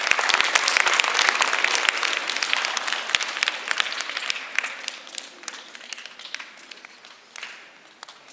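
Audience applause from many people clapping, loud at first, then thinning out and dying away toward the end.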